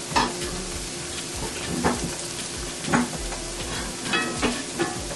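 Salmon fillets searing skin side down in a frying pan with onions, a steady sizzle broken by about six sharp clicks.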